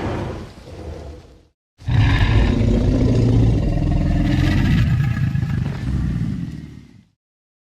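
Film sound effect of a male Tyrannosaurus rex roaring: a short roar that dies away, then, after a brief pause, one long roar of about five seconds that fades out near the end.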